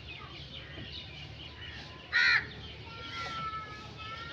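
A crow gives one short, loud, harsh caw about two seconds in, with fainter bird calls around it.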